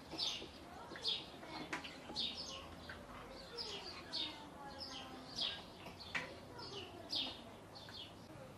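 Birds chirping over and over, short high downward chirps about twice a second, with a few sharp clinks of forks against a metal serving tray.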